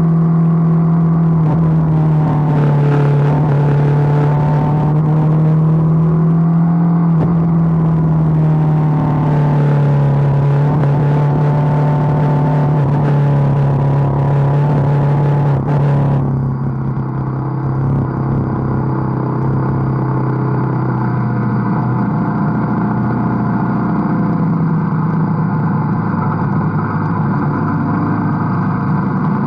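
BMW GS motorcycle engine running at road speed, a steady engine note with rushing wind and road noise; the note dips a little about a quarter of the way in, and the high hiss drops away suddenly about halfway through.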